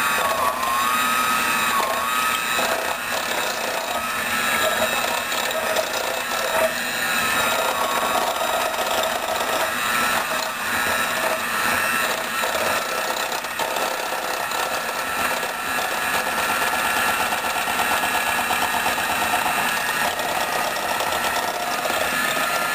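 Electric mixer motor whining steadily as it mixes avocado into a coconut-milk and oil conditioner. Its pitch dips a few times in the first seconds, then it holds steady. The avocado is not liquefying.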